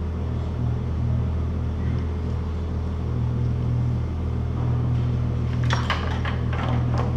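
Steady low mechanical hum, with a few short clicks and rustles near the end, typical of wiring being handled.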